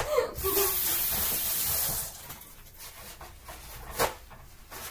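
Water running from a kitchen tap for about a second and a half, then stopping; a single sharp click about four seconds in.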